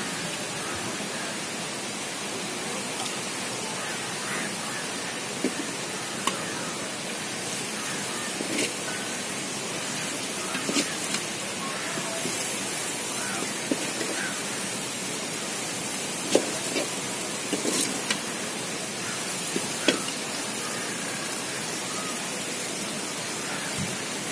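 Rohu fish pieces frying in hot oil in a black iron kadai, a steady sizzle, with scattered clicks and scrapes of a metal slotted spoon against the pan.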